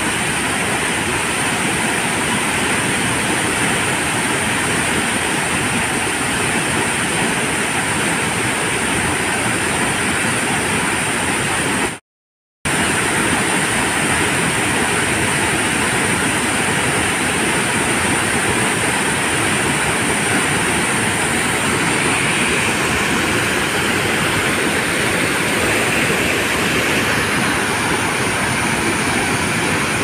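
Waterfall with two falls plunging into a rock pool: a loud, steady rushing of water, cut to silence for about half a second around twelve seconds in.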